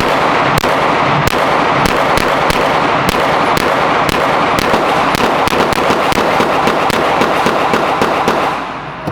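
Gunfire on a shooting range: a long string of shots in quick succession, coming faster after about six seconds, over a steady echoing din, and stopping shortly before the end.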